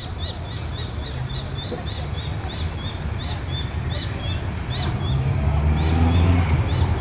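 Motorcade of police motorcycles and cars passing at low speed, their engines a low rumble that grows louder about five seconds in. A bird chirps over it, short high calls about twice a second.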